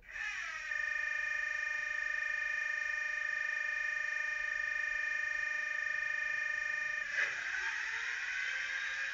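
Sound-decoder recreation of an HST power car's Paxman Valenta diesel, played by an ESU LokSound V5 nano decoder through a tiny 9 x 25 mm sugar-cube speaker. It comes on suddenly with a brief downward glide and settles into a steady, tinny, multi-tone engine note. About seven seconds in, a rush of noise and a slowly rising whine join it.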